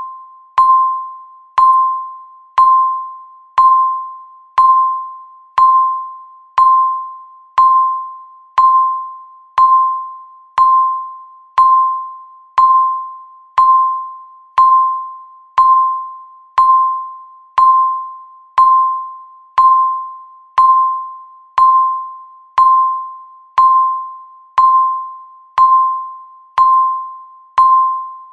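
Countdown timer beep sounding once a second: a single mid-pitched tone that starts sharply and fades away like a small chime, repeating evenly.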